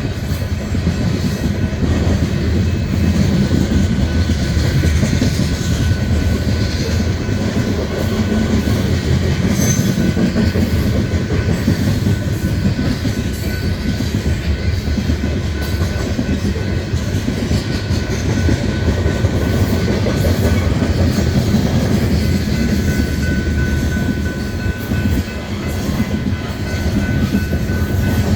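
Train rolling along the track: a steady, loud low rumble with wheel clatter. A thin, high steady tone, like wheel squeal, comes in more strongly near the end.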